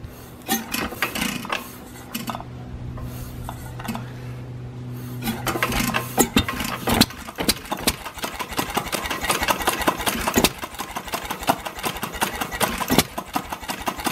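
1914 Novo hit-and-miss gasoline engine being started: a steady hum with scattered clicks as the flywheel is turned by hand, then the engine catches about five seconds in. It runs with a rapid mechanical clatter broken by occasional louder firing strokes, the uneven beat of a hit-and-miss governor.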